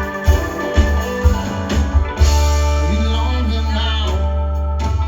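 Live band playing an instrumental stretch of a song: a steady beat for the first two seconds, then a long held low note with guitar and keys over it.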